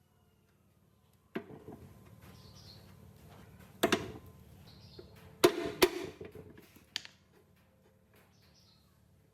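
A handful of sharp knocks and clatters with rustling handling noise between them, the loudest near four and five and a half seconds in.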